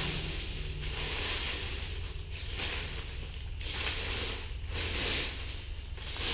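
Dry leaves and twigs being raked across gravelly ground: a scraping rustle in strokes about once a second, over a steady low rumble.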